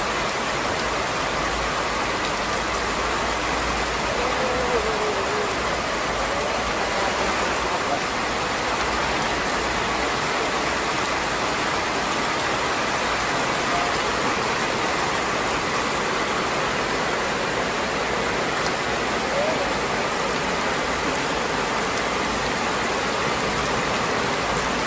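Steady rain falling on a pond and wet concrete: an even, unbroken hiss of water, with faint voices now and then.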